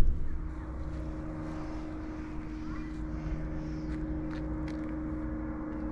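A de Havilland Chipmunk, a vintage single-engine propeller trainer, flying over with a steady engine note.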